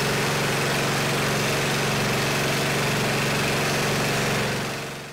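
Small engine of a red rear-engine riding mower running steadily, fading out near the end.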